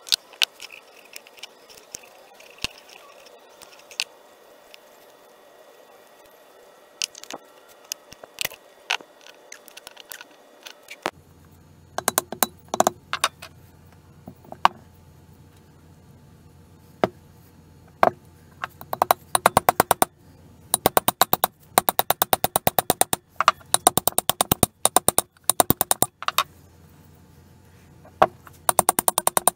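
Painted cast-iron vise parts being handled and fitted together on a wooden bench: scattered sharp metal clicks and knocks, then a low steady hum about eleven seconds in, and several runs of rapid, even clicking in the second half.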